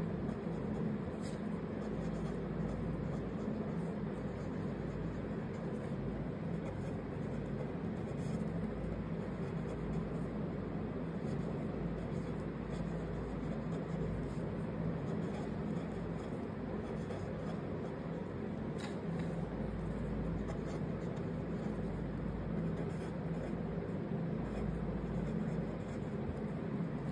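Felt-tip pen scratching softly on card paper as letters are written, over a steady low hum.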